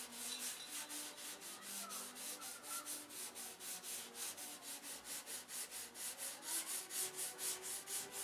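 Sandpaper scratching back and forth over the wood of a model airplane's fuselage in quick, even strokes, about four or five a second, smoothing out small dings before painting.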